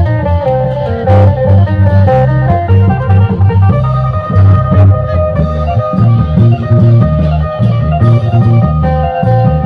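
Isan folk music: a phin, a plucked lute, plays a busy melody over a steady rhythm of deep klong yao long-drum beats.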